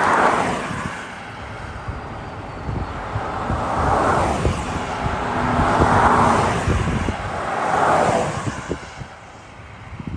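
Rushing outdoor noise that swells and fades about four times, a couple of seconds apart, over a low rumbling flutter, then drops near the end.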